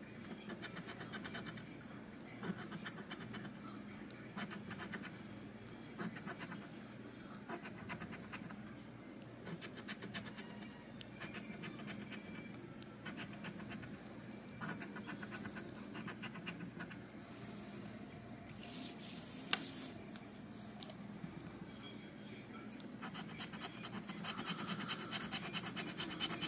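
A coin scraping the latex coating off paper lottery scratch-off tickets, in runs of quick back-and-forth strokes with short pauses between. About three-quarters of the way through comes a brief, louder scrape.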